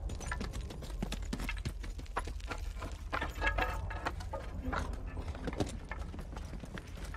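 Soldiers' boots running and scrambling over rubble and broken boards, a rapid uneven clatter of footsteps and knocks with equipment rattling, over a steady low rumble.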